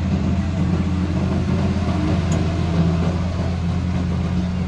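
Heavy diesel engines running with a steady low drone as trucks move off a ro-ro ferry, with vehicle noise from trucks and a car passing.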